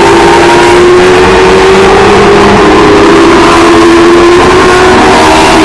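A pack of race cars racing past, several engines at high revs at once, their pitches overlapping and shifting slightly. Loud throughout.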